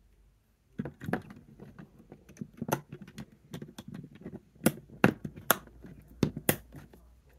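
Plastic Lego pieces clicking and clattering as fingers handle them and press them onto a model. The run of small clicks begins about a second in, with a few louder, sharp snaps in the second half.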